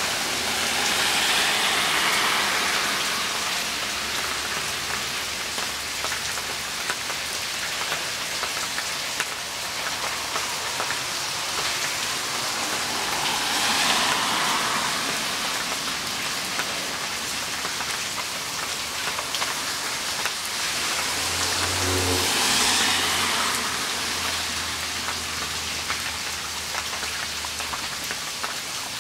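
Rain falling steadily: a constant hiss that swells a few times.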